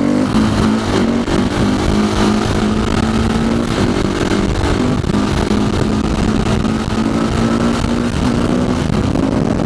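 Motorcycle engine running under way, its note holding fairly steady with small shifts in pitch, over a rush of noise.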